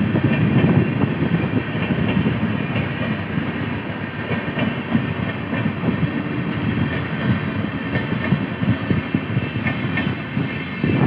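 Indian Railways passenger train of LHB coaches passing close by: a steady rumble of steel wheels on rail, with many sharp clicks as the wheels run over the rail joints.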